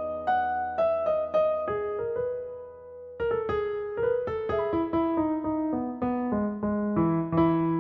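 Background music: solo piano playing a slow, gentle melody of single struck notes over held lower notes, with a short lull about three seconds in.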